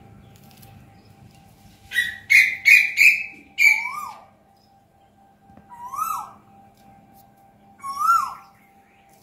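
A bird calling: a quick run of four loud notes about two seconds in, then a short call that rises and falls, repeated about every two seconds.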